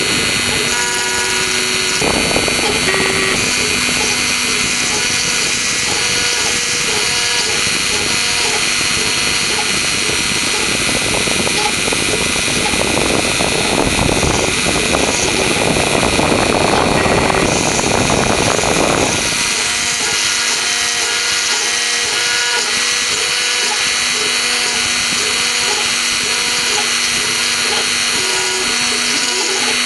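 Mini CNC router milling wood: the spindle runs with a steady high whine while the axis motors give short tones that keep changing pitch as the bit moves through the pockets. From about 11 to 19 seconds in, the cutting noise grows louder and denser.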